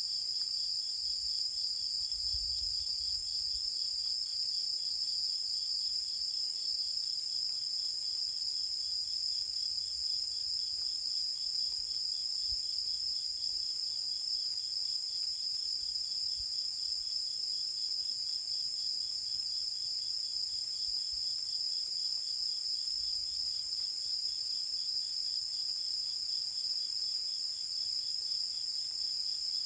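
Night-time chorus of singing insects, several species trilling steadily at once at different high pitches, one of them with a lower, fast pulsing chirp beneath the others.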